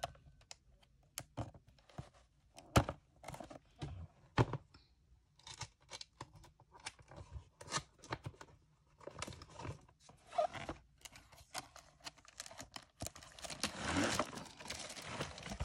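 A product box being opened by hand: scattered sharp tearing and scraping sounds as tape and cardboard are pulled apart, then a denser stretch of rustling and crinkling packaging near the end.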